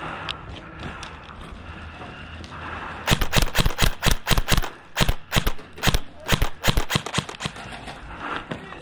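Airsoft guns firing: a string of sharp cracks starting about three seconds in, some in quick bursts and some single, over roughly five seconds.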